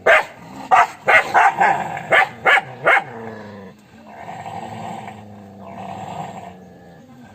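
A dog barking, about eight sharp barks in quick succession over the first three seconds, then two longer, lower growls.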